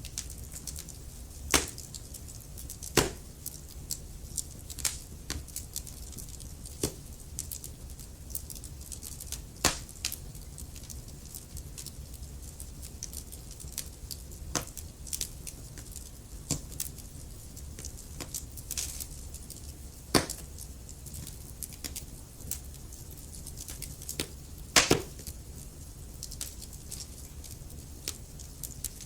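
Wood fire burning: a steady low rumble of flames with sharp crackles and pops of burning logs, a loud snap every few seconds.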